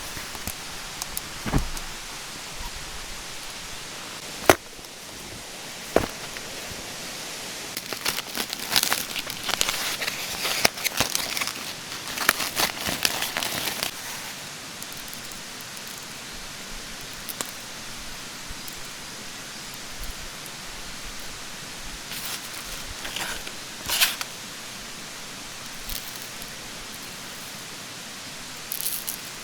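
Steady rush of a mountain stream, with scattered sharp clicks and a few spells of close rustling and crackling, the longest about eight to fourteen seconds in.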